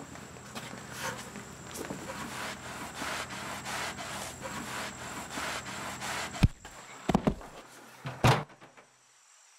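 Soft shuffling and rustling, then a few sharp knocks, the loudest one about six and a half seconds in and two more close together about a second later.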